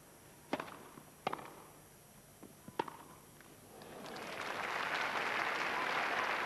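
Tennis ball struck by rackets three times in a short grass-court rally, sharp pops about a second apart at first, then crowd applause swelling up from about four seconds in as the point ends.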